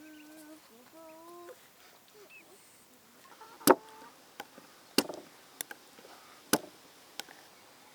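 A rooster finishes crowing, then five sharp, separate chopping knocks come at uneven intervals; the loudest is a little after three and a half seconds in.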